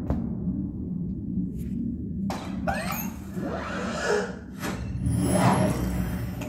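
Roku TV start-up intro audio played through a soundbar: low rumbling music with whooshing sweeps and a rising glide.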